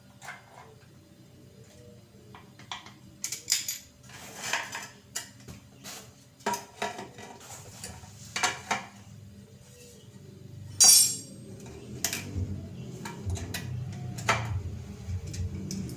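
Metal tools clinking and clanking against the metal parts of a single-tub washing machine's gearbox as it is taken apart: a dozen or so sharp, irregular knocks, the loudest about eleven seconds in. A low hum grows louder in the second half.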